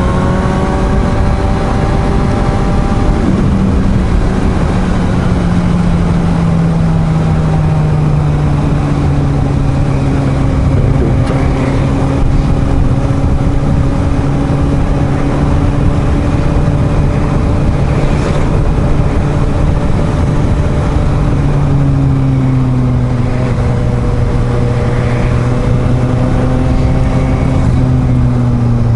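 Suzuki GSR750 inline-four motorcycle engine running at a steady cruise, its note easing gradually lower, then dropping a little further about three-quarters of the way through. Wind rushing over the microphone runs underneath it.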